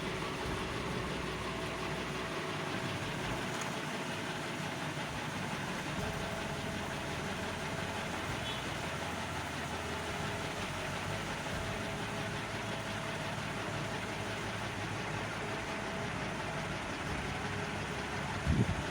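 Steady background hiss with a faint low hum, and a couple of soft knocks near the end.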